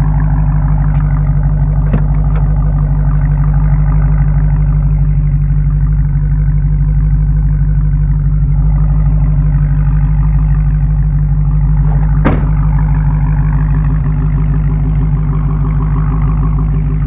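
2015 Dodge Challenger SRT Hellcat's supercharged 6.2-litre Hemi V8 running loud at a steady engine speed, with no revving up or down. A sharp click sounds about twelve seconds in.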